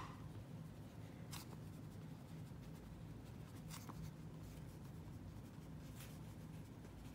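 Ballpoint pen writing on ruled notebook paper: faint scratching strokes with a few light ticks as the pen touches down.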